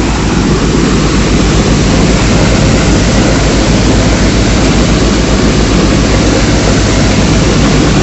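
VS Punni multicrop thresher threshing wheat, driven off a tractor's PTO: a loud, steady mechanical din with a steady low engine hum underneath.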